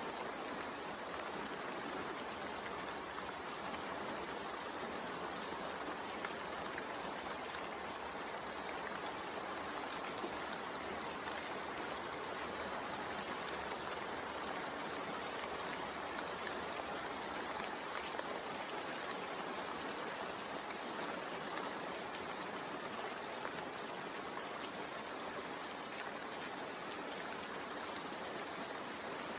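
Steady rainfall: an even, unbroken hiss of falling rain that keeps the same level throughout.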